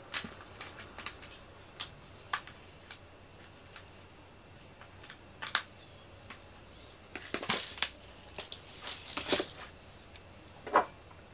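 Irregular light clicks and taps in a quiet room, a few seconds apart, with a quick cluster about seven seconds in and a sharper click near the end.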